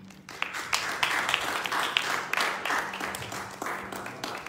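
A small congregation applauding by hand. The clapping swells about a second in and thins out toward the end.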